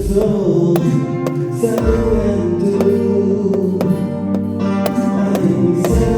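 Music with guitar over a steady beat, with a deep thump about every two seconds and light regular ticks.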